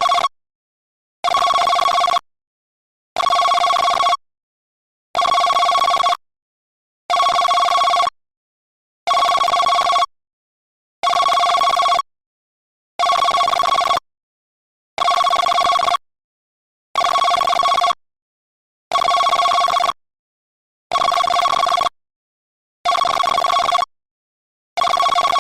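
i-mobile i-style 5 mobile phone ringtone in a telephone-ring style: rings about a second long, each of two steady tones, repeating every two seconds with silence between.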